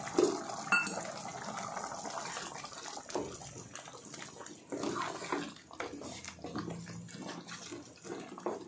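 Wooden spatula stirring thick chicken gravy in a steel pot: irregular wet sloshing and squelching, with short scrapes against the pot.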